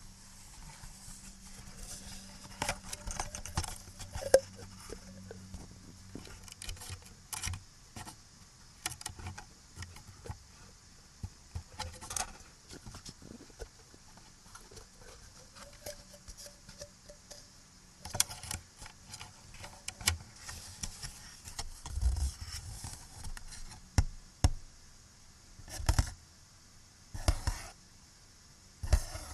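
Close-miked taps, clicks and short scratches on small objects such as plastic, a coin or cardboard, coming irregularly with a few longer scrapes near the end, over a steady recording hiss.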